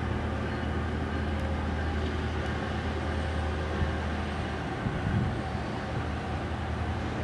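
A steady low rumbling hum with a few faint, short knocks about halfway through.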